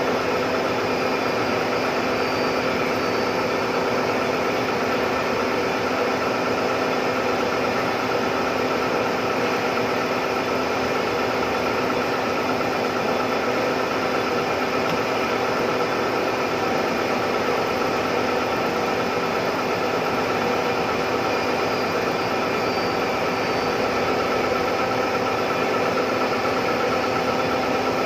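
Large CNC milling machine running steadily: a constant machine hum with several fixed tones over an even noise, no changes or impacts.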